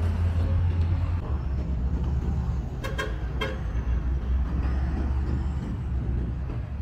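Street traffic with the low, steady rumble of a nearby vehicle engine. About three seconds in, a car horn gives three short toots: two quick ones, then a third.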